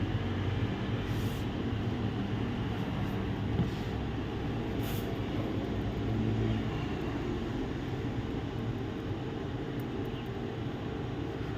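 Steady low background hum and hiss of running machinery, with a couple of faint clicks.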